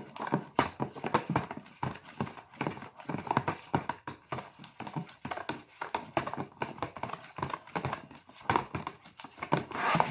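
A utensil stirring a warm glue slime mixture in a bowl, knocking against the bowl in quick, uneven clicks about three or four times a second.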